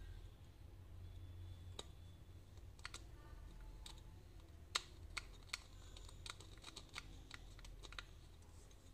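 Faint, irregular small clicks and ticks of steel cutting pliers gripping and prying a surface-mount LED chip off the aluminium LED board of a 9-watt LED bulb, removing the faulty SMD that dims the bulb.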